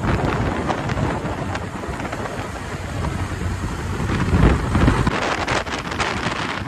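Wind buffeting the microphone of a camera riding on a moving motorcycle, a dense rushing noise that swells briefly about four and a half seconds in.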